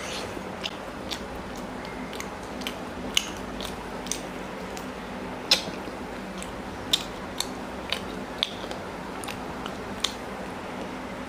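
Close-miked mouth sounds of a person eating chicken curry with paratha by hand: chewing and biting with irregular sharp smacks and clicks, a few of them louder, over a steady low hum.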